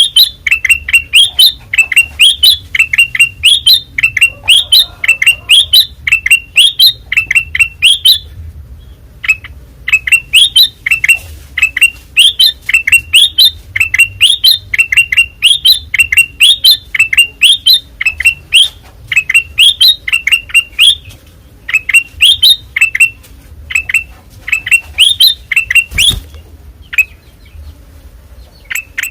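Kutilang emas (a bulbul) singing loudly and without let-up: a fast run of short, sharply rising whistled notes, about three or four a second, with a short pause about eight seconds in. A single knock sounds near the end.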